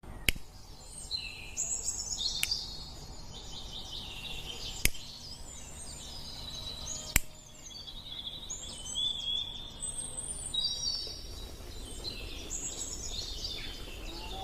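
Several small songbirds singing and twittering at once, high overlapping chirps and warbles throughout. Four sharp clicks stand out above the birdsong, spread over the first half.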